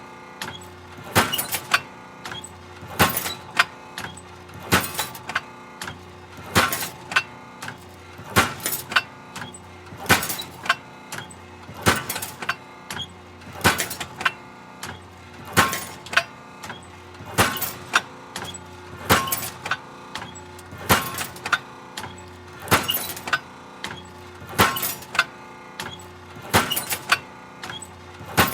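Hydraulic metal shear running in a steady cycle: a cluster of sharp metallic pounding and squeaking about every two seconds over a constant machine hum.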